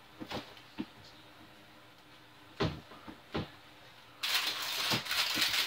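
A few sharp knocks and clicks of things being handled, then, about four seconds in, a loud, rough, crackly noise that keeps going.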